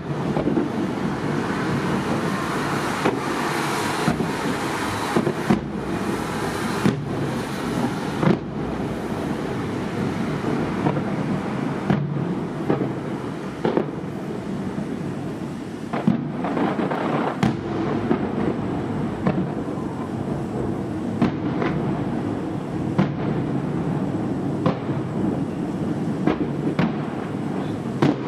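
Aerial fireworks shells bursting over the sea in quick succession: a steady run of sharp bangs over a continuous rumble, echoing around the bay, busiest in the first several seconds.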